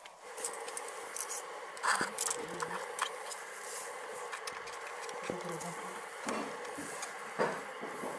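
Steady buzzing hum with scattered light metallic clicks and taps from hands handling a CV joint and a thin metal clamp band. Two louder knocks, about two seconds in and near the end.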